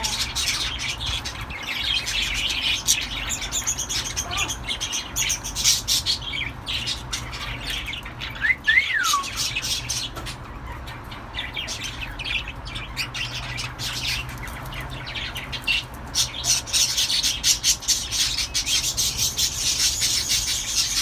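Pet cockatiels chirping and chattering without a break, with many short sharp clicks throughout. A single whistle rises and then falls a little under halfway through.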